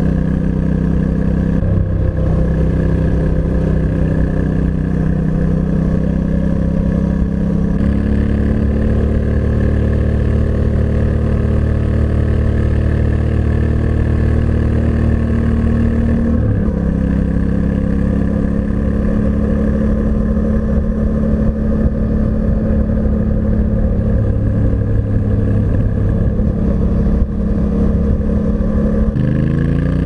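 Yamaha Ténéré 700's 689 cc CP2 parallel-twin running through its stock exhaust at low, steady revs while riding, its pitch shifting a few times and climbing as it accelerates near the end. The engine is being gently warmed up.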